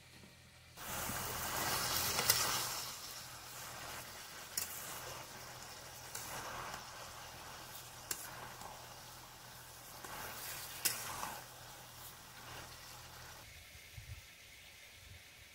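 Chicken and spices frying in a kadai, sizzling while being stirred, with the spatula clicking against the metal a few times. The sizzle starts suddenly about a second in, is loudest for the next couple of seconds, then settles lower.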